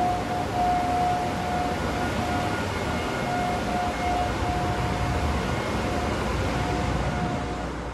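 Engine-room machinery of a chemical tanker running: a loud, steady din with a steady high whine over it that breaks off and returns now and then. The noise begins to fade right at the end.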